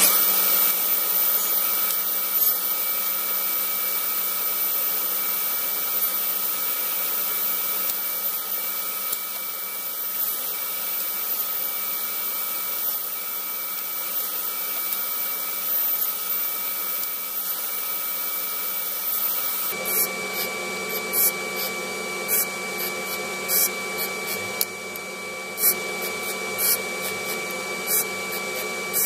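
A woodworking machine runs with a steady high whine and hiss. About two-thirds of the way through, a sanding disc spinning on a lathe takes over, with short scraping strokes about once a second as small wood pieces are pressed against it.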